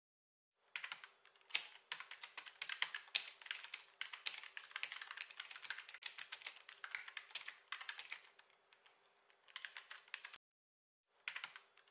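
Computer keyboard typing: a quick, uneven run of key clicks that stops about ten seconds in and starts again briefly near the end.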